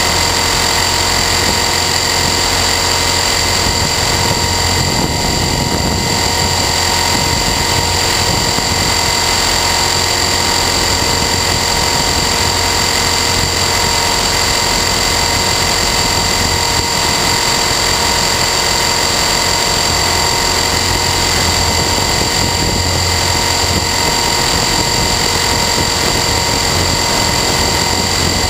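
Align T-REX 450 Sport electric RC helicopter in flight, heard close up from a camera mounted on it: a steady high-pitched whine of the brushless motor and gears over the rotor noise and a low rumble.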